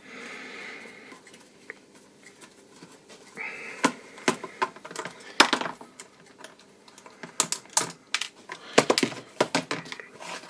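Irregular sharp clicks and taps as a screwdriver and small parts knock against the plastic case of a Fluke clamp meter being taken apart, its screws being backed out.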